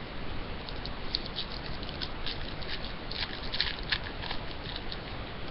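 Trading cards being handled: a run of light, soft clicks and rustles as cards slide over one another, over a steady hiss.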